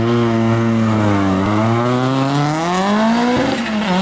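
Citroën C4 rallycross Supercar's turbocharged four-cylinder engine at full power, accelerating hard from the start line. Its pitch dips briefly, climbs for about two seconds, falls sharply at a gear change about three and a half seconds in, then climbs again.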